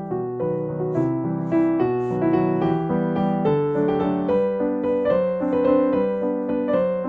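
Background piano music: a melody of overlapping held notes.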